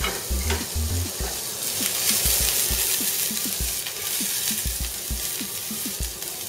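Chopped vegetables sizzling in hot olive oil in a frying pan over high heat, the sizzle loudest around the middle. A few light knocks come as the pan is handled and tossed.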